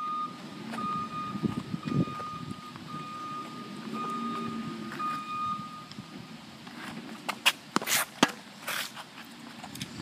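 A repeating electronic beep, each about a second long with short gaps, over a low engine rumble, typical of a truck's reversing alarm; it stops about six seconds in. After that come several sharp knocks of a tennis ball being bounced and struck on a hard court.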